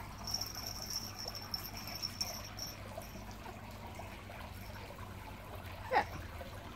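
Quiet outdoor background with a thin high whine for the first few seconds; about six seconds in, one short sharp yelp from a Yorkshire terrier puppy during rough play with an adult Yorkie.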